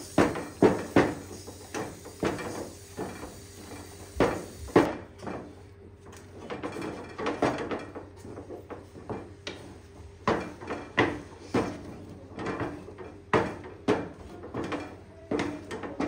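Thick dhido being stirred and beaten with a flat paddle in an aluminium saucepan, giving repeated knocks and scrapes against the pot at about two to three a second, unevenly spaced.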